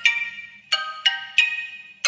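Xiaomi 12X ringtone playing: a short repeating melody of struck, ringing mallet-like notes, each sounding sharply and then dying away, a few notes a second.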